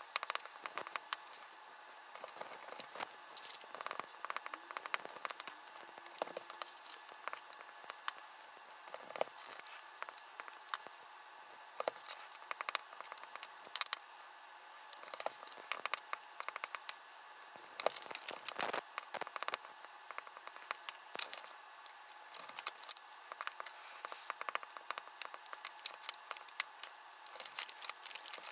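Paper crafting sounds: cardstock handled and rustled on a cutting mat, with irregular taps and scrapes as small pieces are coated with a glue stick and pressed onto the card.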